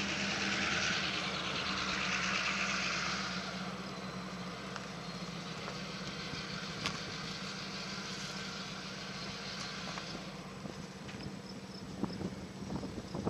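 An engine running steadily, a low hum, with a hiss that is strong at first and fades after about three and a half seconds.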